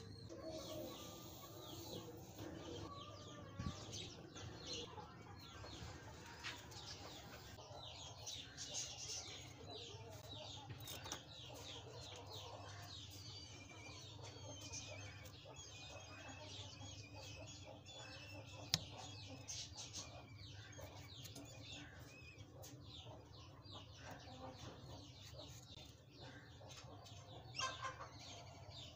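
Small birds chirping busily and continuously, with chickens clucking, all faint. Near the end come a couple of soft knocks as a small knife slices a potato against a wooden board.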